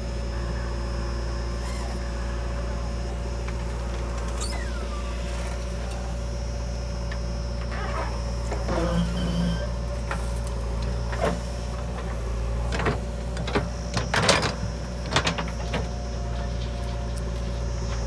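Diesel engine of a working backhoe loader running steadily at a constant speed. In the second half come a series of knocks and clatters, loudest about fourteen seconds in.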